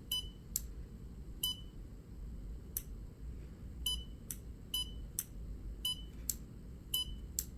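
Short single beeps from a motor controller's touch-panel buzzer, one for each button press. There are about a dozen at uneven intervals, over a faint low hum.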